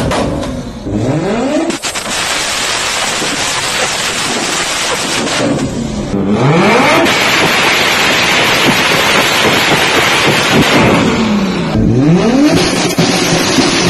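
Big-turbo car engine revved hard and held high, dropping briefly and climbing again three times (about a second in, around six seconds, and near twelve seconds), with antilag crackle and backfires from the exhaust.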